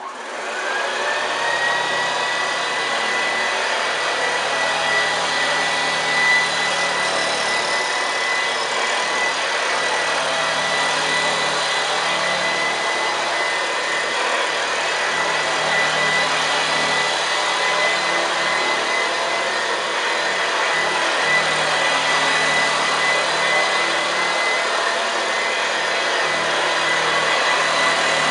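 1967 Hoover Senior 652A upright vacuum cleaner switched on, its motor whine rising to a steady high pitch within about a second, then running steadily while the beater bar works the carpet. The motor is running on its high-power setting of about 600 watts, its speed switch stuck in the high position.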